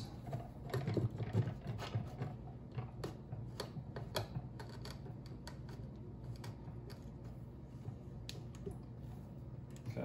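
Irregular light metal clicks and taps from a Zassenhaus hand-crank coffee mill as its crank nut is loosened and the grind adjustment turned toward fine. The clicks come thickly at first and grow sparse after about halfway.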